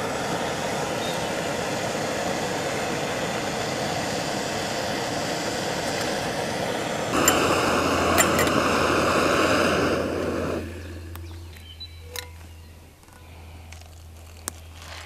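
Gas camping stove burner hissing steadily under a stainless steel pot of water, louder from about seven seconds in, then dying away about ten and a half seconds in as it is shut off. A few light metallic clinks from the pot's lid and handle follow.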